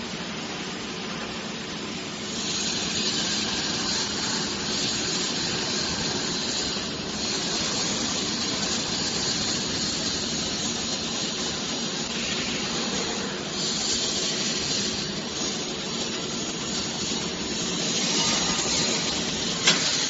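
Steady machinery noise with a hiss and a faint hum, getting louder about two seconds in, and a sharp click near the end.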